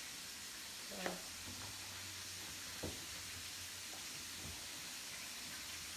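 Chicken frying in a skillet, a steady sizzle, with a couple of short knocks about one and three seconds in and a low hum coming in after about a second and a half.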